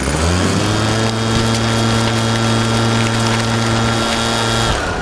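A machine-like motor hum that spins up over the first half second, runs at a steady pitch, then winds down near the end.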